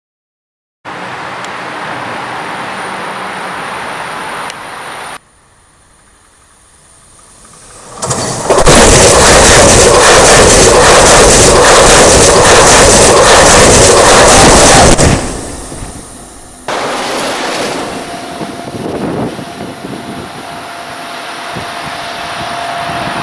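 Electric ICE 2 high-speed train passing directly over a camera placed between the rails: a rushing noise builds, then an overwhelming roar of wheels and air with rapid clatter, loud enough to distort, lasts about six seconds and dies away. Before it comes a shorter stretch of rushing noise, and after it a quieter rush with a steady high whine as the train approaches on the line.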